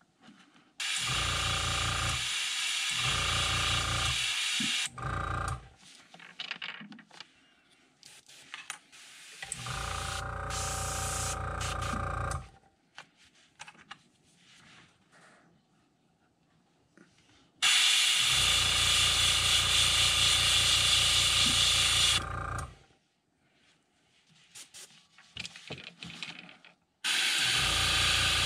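Airbrush spraying paint in several bursts lasting one to five seconds, each with a hiss of air over a steady motor hum from the compressor, starting and stopping abruptly.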